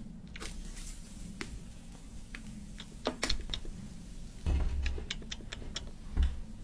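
Clicks and taps from handling an electric dip crepe maker and peeling a crepe off its plate, with a couple of dull thumps about two-thirds of the way in and near the end, over a low steady hum.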